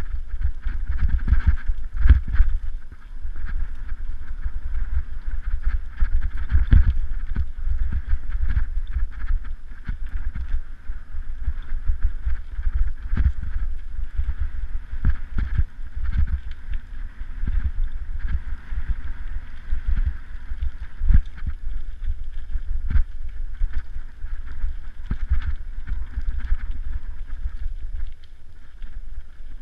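Mountain bike ridden fast over a dirt singletrack, heard from a microphone on the moving bike: wind buffets the microphone with a constant low rumble, and frequent knocks and rattles come as the bike jolts over bumps and roots.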